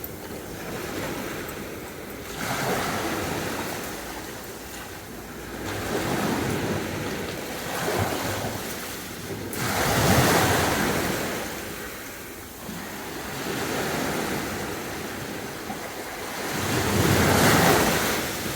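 Sea waves breaking and washing on the shore, swelling and ebbing every few seconds, loudest about ten seconds in and again near the end.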